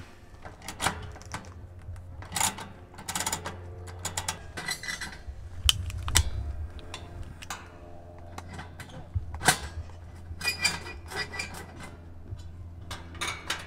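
Scattered sharp clicks, taps and small metal clinks of a screwdriver and fingers working on a portable kerosene heater's igniter coil and ignition knob.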